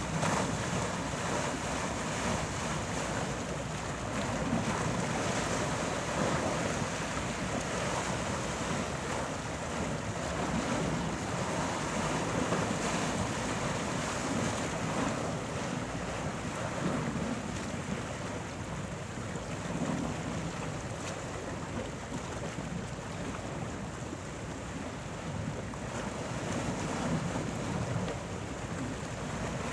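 Sea waves breaking and washing in: a continuous rush of surf that swells and eases every few seconds.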